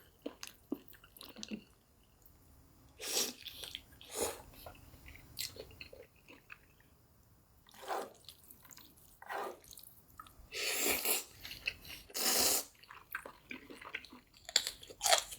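Close-miked eating of chicken and Chapagetti black-bean noodles: chewing, biting and crunching in separate bursts every second or few, with wet mouth sounds between.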